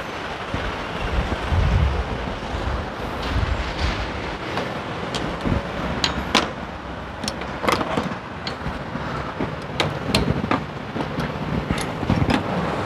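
Irregular sharp metallic clicks and taps of hand tools and parts being handled on a car engine that is switched off, as parts of the intake are taken apart. Under them runs a steady rumble of traffic, heavier in the first couple of seconds.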